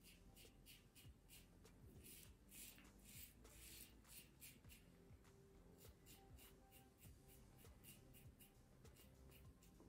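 Faint, scratchy rasp of a 1940s Gillette Super Speed double-edge safety razor cutting stubble, in short repeated strokes about two or three a second.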